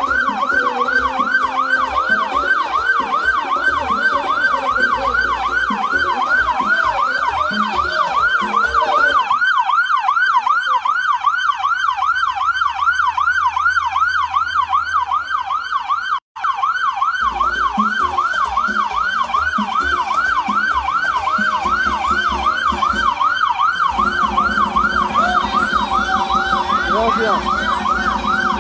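Electronic vehicle siren on a fast yelp: a rapid rising-and-falling wail repeating about three times a second without pause. It cuts out for an instant a little past halfway.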